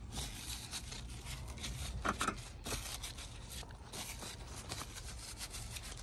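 Dried amaranth seed heads being crunched and rubbed in gloved hands: an uneven dry rustling and scraping, with a louder crackle about two seconds in.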